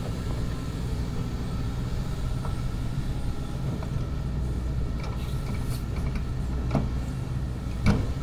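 Kobelco excavator's diesel engine running steadily as the boom swings out and lowers the bucket, with a few light knocks and one sharp clank near the end, the loudest moment.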